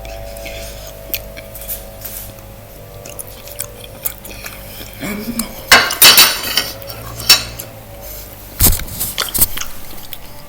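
Metal fork clinking and scraping against a plate, with a few louder clatters about halfway through.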